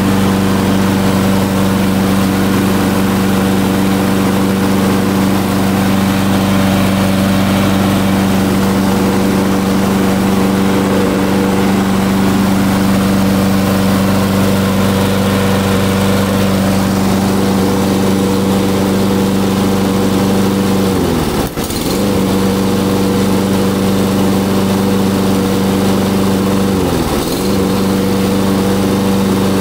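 Makita PLM4621N2 petrol lawnmower's four-stroke engine running steadily at a constant speed. Near the end the engine speed dips sharply twice and recovers each time.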